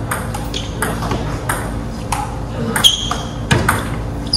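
Table tennis rally: the celluloid ball clicking off bats and table in a steady back-and-forth rhythm, about one knock every two-thirds of a second.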